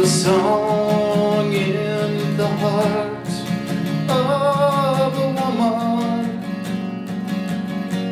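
Acoustic guitar strummed in a steady rhythm, with singing over it in two long phrases of held, wavering notes, the second starting about four seconds in.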